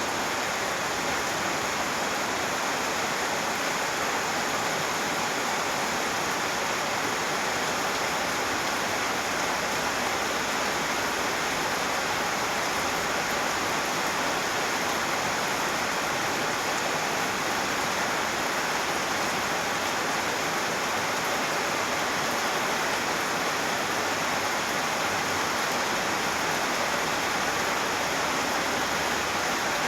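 Steady rainfall: an even, unbroken hiss of many drops, with no single drop, thunder or other event standing out.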